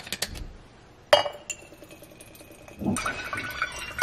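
Small clicks as a bottle cap is twisted off, a sharp clink of glass about a second in, then soy sauce pouring from the bottle into a glass measuring cup near the end.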